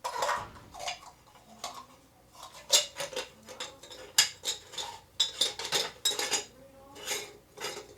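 Metal parts of a large manual meat grinder clinking and clanking against each other as they are handled: the cutter plate and knife coming off and the aluminium sausage-stuffing funnel going on. Many sharp, ringing clinks at an uneven pace, the loudest a little under three seconds in and again about four seconds in.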